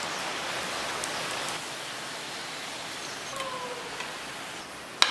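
Bhatura deep-frying in hot oil, the oil sizzling steadily and easing a little after about a second and a half. A sharp click near the end.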